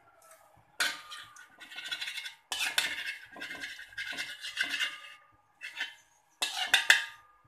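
Metal spoon scraping and clinking against a metal wok while stirring melting ghee, in several bouts of strokes with short breaks.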